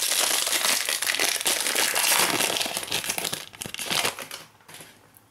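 Foil wrapper of a Panini Prizm Fast Break trading card pack crinkling as it is pulled open by hand. The crackling dies away about four and a half seconds in.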